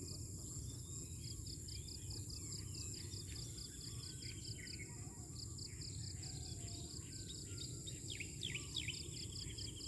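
Outdoor ambience of insects and birds. The insects make a steady high buzz with a rapid pulsing chirp about five times a second, while birds chirp and trill, with a few falling trills late on. A low rumble of wind or background noise sits under it all.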